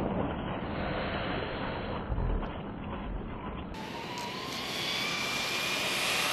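Traxxas Stampede 4x4 VXL RC truck running, its Velineon brushless motor and drivetrain whining over tyre noise. About four seconds in the sound cuts to another take, where a faint whine rises in pitch as the truck speeds up.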